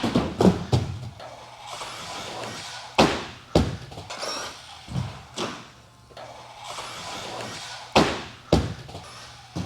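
Associated RC10B6.4 electric RC buggy running laps on a racing track: a string of sharp thuds and knocks, about nine in all, as it bounces and hits the track, with the hiss and whine of the running car between them.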